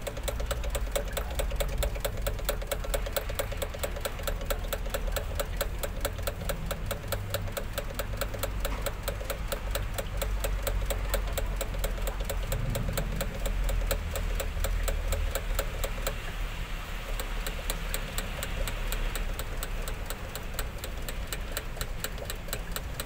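Priming pump on a MAN diesel engine's fuel filter housing being pumped to draw diesel up and fill the empty housing before a new filter goes in. It makes a rapid, very even clicking, about five clicks a second, over a steady low rumble.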